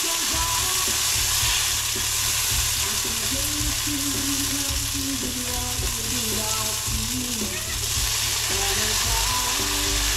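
Food frying in oil in a pan, a steady sizzle.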